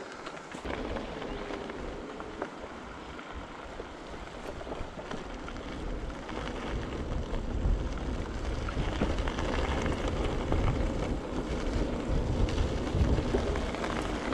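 E-bike tyres rolling over a gravel track, with wind rumble on the handlebar-mounted microphone. The rumble grows louder about halfway through.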